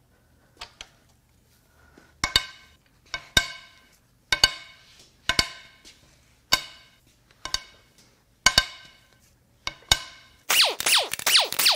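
Cylinder-head bolts on a Ford 2.7 EcoBoost V6 being cracked loose one after another with a breaker bar: a sharp metallic crack with a short ring about once a second, eight or nine times. Near the end comes a fast, loud run of clicking.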